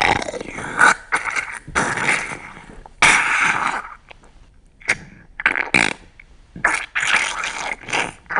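Crude bodily noises: a string of short, rough, spluttering bursts at irregular intervals, the loudest at about one and three seconds in.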